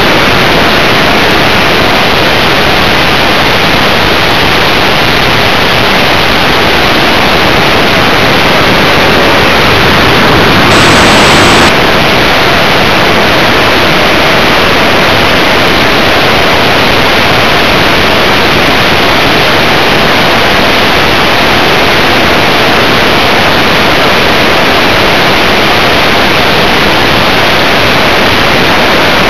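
Loud, steady rush of airflow and motor noise picked up by a small camera strapped to a Multiplex FunJet Ultra model jet in flight, with a brief louder surge about eleven seconds in.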